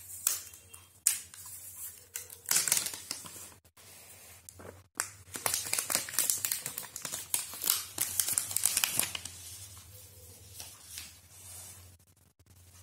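Thin protective plastic wrap being pulled off a new smartphone, crinkling and rustling in irregular bursts, dying down near the end.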